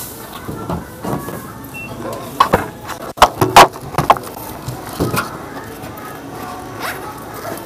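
Groceries and a full shopping bag being handled: a run of sharp knocks and clunks, densest in the middle, with a few single knocks before and after.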